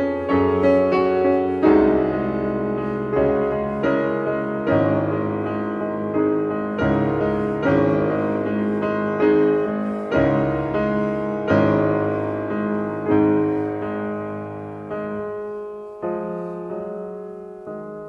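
Slow, gentle solo piano music, notes and chords struck about once a second and left to ring out, fading down toward the end.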